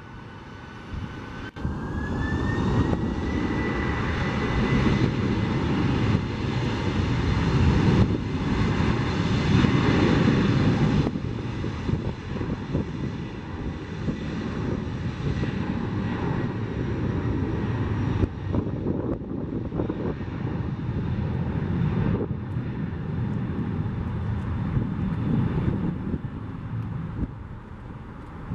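Boeing 767 freighter's twin turbofan engines at takeoff thrust on the takeoff roll: a whine that rises over the first few seconds and then holds steady, over a heavy rumble that builds and stays loud as the jet accelerates down the runway.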